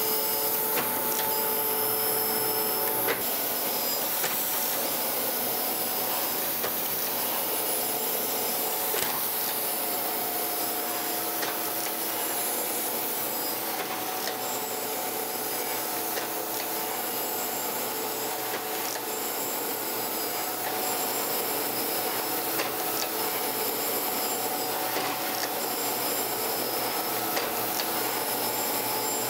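Surface grinder's wheel grinding the steel top of a magnetic chuck, a steady hiss over the machine's steady hum, as the table traverses the chuck back and forth under the wheel. It is a light truing pass of about half a thousandth to bring the chuck top flat.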